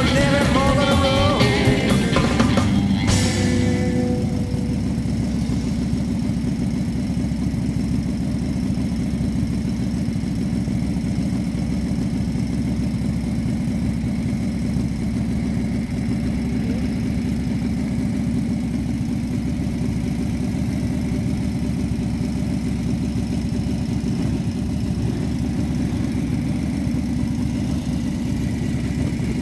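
A rock song with singing stops abruptly about three seconds in. After that a vintage motorcycle engine idles steadily.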